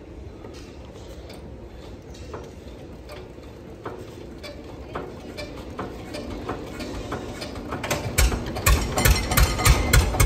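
Old diesel tractor engine being hand-cranked with its starting handle: the crank turns with repeated ratcheting clicks. About eight seconds in, the engine fires and starts running with a rapid, uneven low knock that grows louder.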